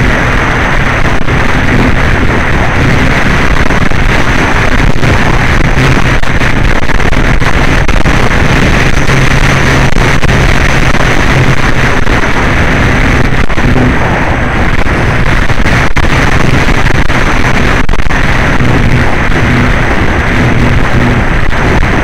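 Loud, steady rush of wind on the onboard camera microphone of a Flyzone Calypso RC plane flying in winds of up to about 30 mph, with a steady low hum underneath.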